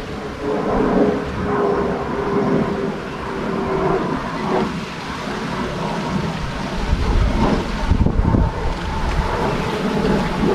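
Outdoor ambience dominated by wind rumbling on the microphone, heavier from about seven seconds in, with a faint steady hum in the first few seconds.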